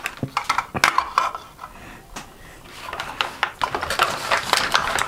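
Plastic toy fruit pieces clicking and clattering as they are handled. The clicks come irregularly and grow busier, with a crackly rustle, from about three seconds in.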